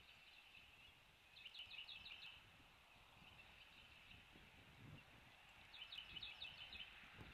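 Faint, quick series of five or six short high chirps, heard twice about four seconds apart, over a steady low hiss. There is a soft low thump about five seconds in.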